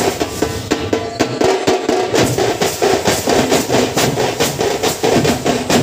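A troupe of large stick-played drums beating a fast, loud rhythm together, with sharp strokes coming in quick, even succession.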